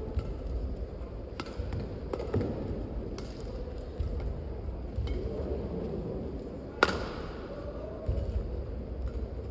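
Badminton rally: sharp racket strikes on a shuttlecock about once a second, the loudest near seven seconds in, over a low rumble of arena ambience.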